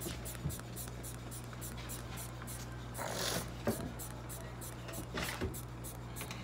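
Quiet room tone: a steady low hum, with a few faint ticks and a brief soft noise about three seconds in.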